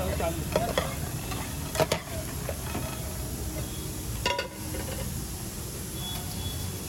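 Metal spatula scraping and clinking against a steel frying pan as cashews and almonds are stirred and scraped out, over a steady sizzle; the sharpest clinks come about two seconds in and again after four seconds.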